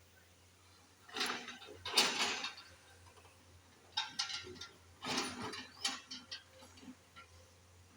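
Backhoe at work: three bursts of clattering and scraping, with lighter scattered clicks toward the end.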